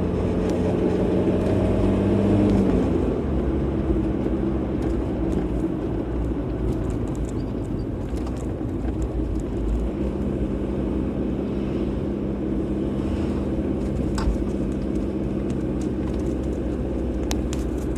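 A car driving, with a steady engine hum over road rumble. The engine note drops about three seconds in and settles into a steady tone again later, with a few faint clicks near the end.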